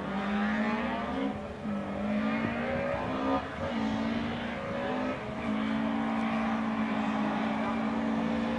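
Race car engine accelerating hard through the gears: its note climbs, drops back at each of three upshifts, then holds a steady high pitch for the last few seconds.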